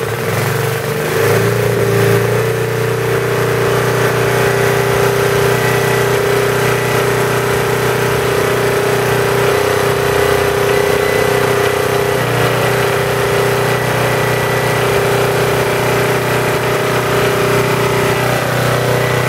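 Briggs & Stratton model NP single-cylinder engine on a Farmaster 600 W generator, just started and running steadily. It comes up to speed in the first second or two, then holds an even note.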